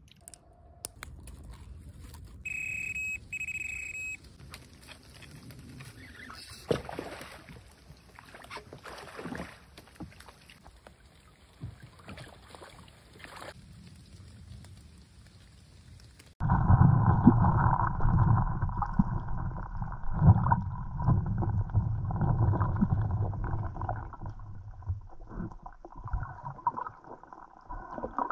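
Quiet outdoor sound with scattered clicks and two short high beeps about three seconds in. About sixteen seconds in it cuts abruptly to much louder, muffled underwater audio from a camera in a waterproof housing: a dense low rumble with crackles and knocks, and nothing in the upper range.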